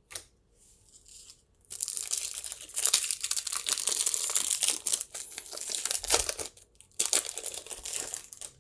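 Foil wrapper of a Pokémon booster pack crinkling and tearing as it is opened and handled, in two stretches with a short pause between.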